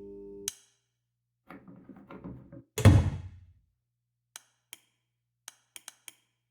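Foley sound effects for an animated short. A steady mechanical hum cuts off with a click, followed by a clatter and one heavy thud. After that come a handful of light, separate clicks.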